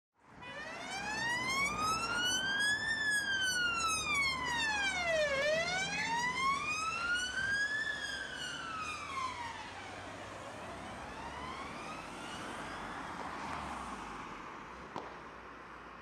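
Police van siren on the wail setting, rising and falling slowly about every five seconds over the van's engine rumble. After about ten seconds it grows fainter and fades out as the van moves away.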